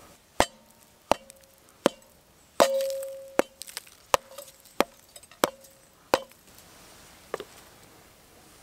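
Knife blade striking and cracking open a hard baked salt-and-egg-white crust: about ten sharp knocks, roughly one every 0.7 seconds, the third followed by a short metallic ring.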